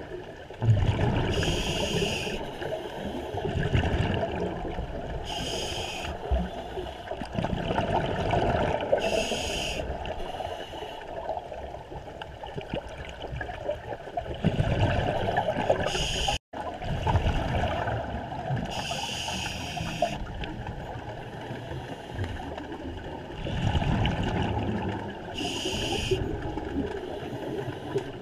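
Scuba diver breathing underwater through a regulator: regular breaths about every three and a half seconds, each a short hiss followed by a rumble of exhaust bubbles.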